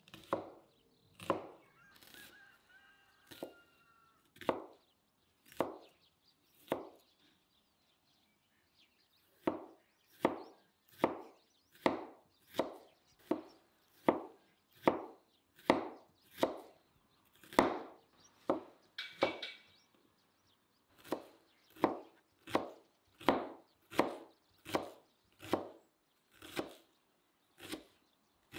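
Kitchen knife chopping onion on a plastic cutting board: single sharp strokes, a few about a second apart, a pause of about two seconds, then a steady run of about one and a half strokes a second. A bird calls briefly a couple of seconds in and again about two-thirds of the way through.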